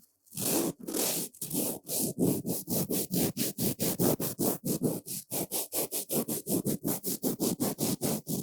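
Brush bristles swept quickly back and forth over a surface in rapid, even strokes of about five a second, after two slower strokes at the start.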